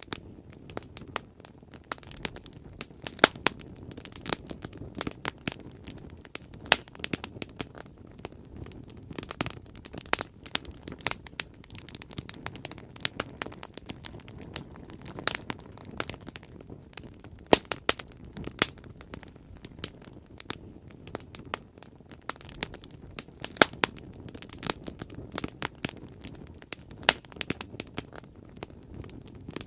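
Wood fire burning, with sharp irregular crackles and pops over a steady low hiss and rumble of the flames.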